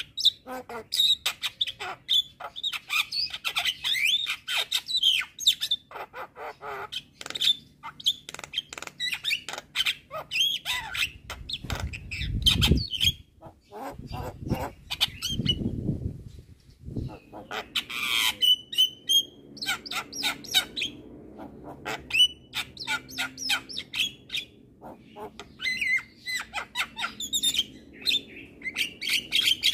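Javan myna (jalak kebo) calling without pause: rapid harsh chattering and clicking mixed with short whistled notes. Two low rumbles sound about halfway through.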